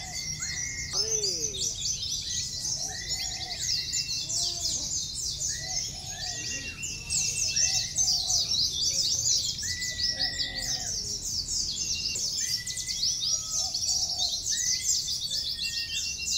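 Many caged oriental white-eyes (pleci) singing at once in competition: a dense, continuous, fast high twittering, with lower chirps repeating about once a second beneath it.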